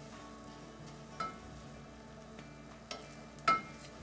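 Rice and butter sizzling and bubbling in a saucepan on high heat as the rice is browned for pilaf and stirred with a wooden spoon. The spoon knocks against the metal pan twice with a short ring, the louder knock about three and a half seconds in.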